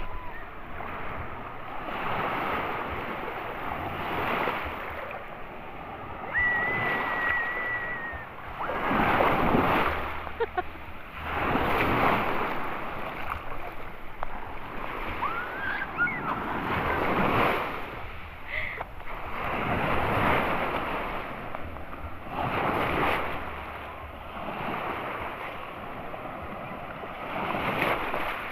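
Small sea waves breaking and washing over the shallows, the rush of surf swelling and fading every few seconds.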